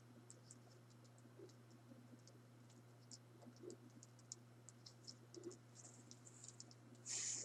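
Faint, scattered small clicks and ticks of a plastic action figure being handled, with a brief louder rustle or scrape near the end, over a low steady electrical hum.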